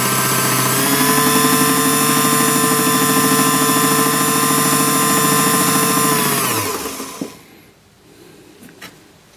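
Small belt-driven clockmaker's lathe running with a steady whine while a 1.1 mm drill bit, held in a hand pin vice, is fed into the spinning brass wheel's arbor to drill a hole for a new pivot. The lathe winds down and stops about seven seconds in, followed by a faint click or two.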